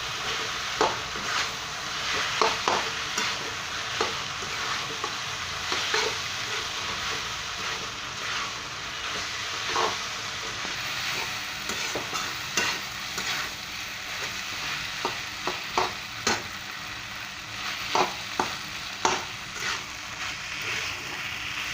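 Veg noodles and vegetables in sauce sizzling in a hot pan while being stirred and tossed with a spatula. The spatula scrapes and knocks against the pan at irregular moments over a steady frying hiss.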